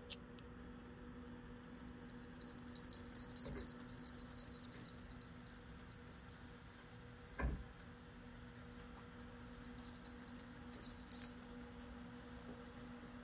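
Small bell on a cat's collar jingling in two spells of rapid light clinking as the cat scratches at its neck with a hind foot, with a single dull thump between them, over a faint steady hum.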